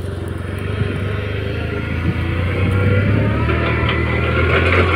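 Toyota forklift's engine running as the forklift drives across loose sand, getting a little louder and rising slightly in pitch from about halfway through.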